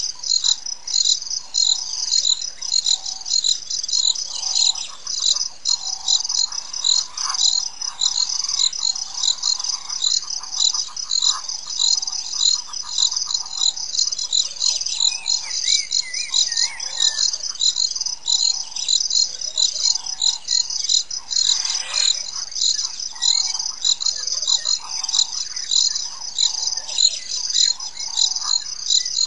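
High-pitched insect chorus pulsing rapidly and evenly, with trains of repeated chirping calls beneath it. A short warbling birdsong comes about halfway through.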